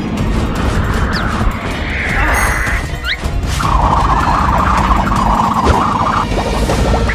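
Cartoon background music with layered sound effects: whooshing swells, two quick rising whistles, then a sustained noisy rush through the middle.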